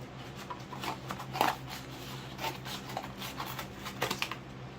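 Cardboard comic mailer being handled and opened: a string of irregular taps, scrapes and crinkles, with a sharper snap about a second and a half in, over a faint steady low hum.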